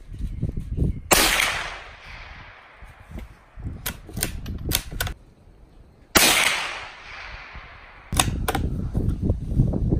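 Two shots from a Savage Mark II F .22 bolt-action rifle, about five seconds apart, each a sharp crack followed by a fading echo. Between the shots a quick run of metallic clicks as the bolt is worked, with two more clicks after the second shot, over a low rumble.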